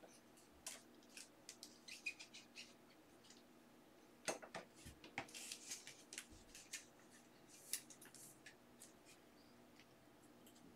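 Faint scattered clicks and taps of rigid plastic card holders being handled and set down on a table, over a faint steady hum. The loudest knock comes about four seconds in, followed by a short rustle.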